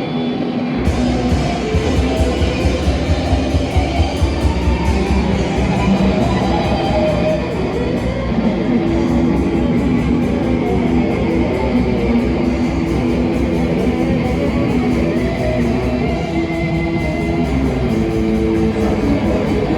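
Live rock band playing loudly: electric guitar over bass and drums, with a heavy pounding low beat in the first several seconds.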